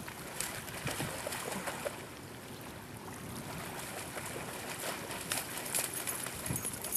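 Water lapping and trickling at a river's edge, a steady faint wash with scattered light clicks and taps.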